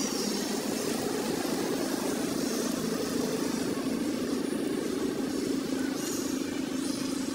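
Steady low rumble of outdoor background noise with no separate events, and a few faint high chirps now and then.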